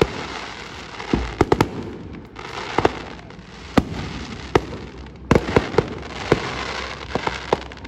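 Fireworks going off in an aerial display: sharp bangs and pops at irregular intervals, several in quick clusters, over a continuous background of noise.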